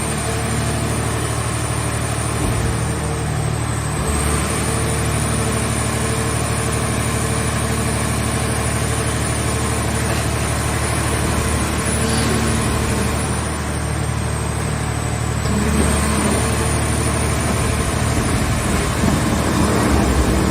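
Car shell baler's engine running steadily, with a thin high whine that dips in pitch twice.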